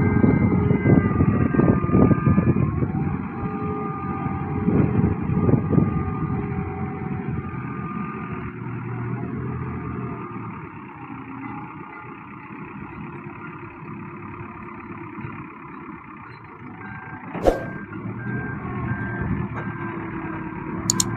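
Dieci Pegasus rotating telehandler's diesel engine running, with a surging rumble in the first few seconds that then settles lower, while a reversing alarm beeps at a fixed pitch. A single sharp knock sounds near the end.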